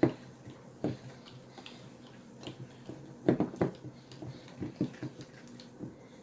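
Scattered, irregular light knocks and clicks, a few close together about three seconds in.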